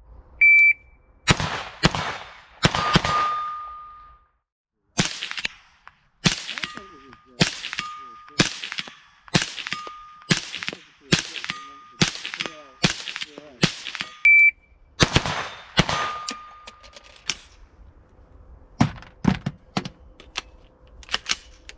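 Guncraft-converted .22 WMR AR-15 firing semi-automatic shots in strings, about two a second, each a sharp crack. Several shots are followed by a short ringing ding. Near the end come quieter clicks and knocks.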